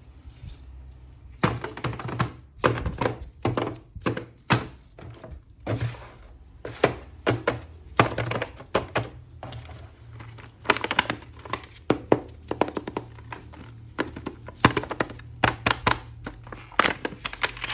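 Irregular knocks and clicks of hard plastic toy parts being handled and set down, over a steady low hum.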